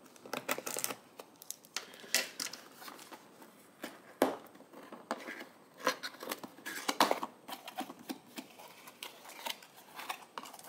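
Plastic shrink wrap on a cardboard kit box being cut and pulled off, giving a run of irregular sharp crackles and rasps.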